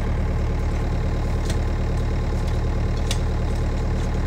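An engine idling steadily at a constant low pitch, with two faint clicks about a second and a half apart.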